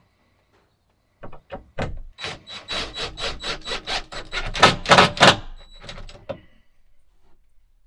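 Cordless drill driving a screw into the timber bed frame. It starts about a second in as a fast rattling run of knocks with a thin motor whine, grows loudest near the end, and stops a little after six seconds.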